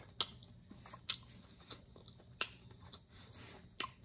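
A person chewing a mouthful of crispy chicken sandwich, close to the microphone, with a few sharp wet mouth clicks about a second apart.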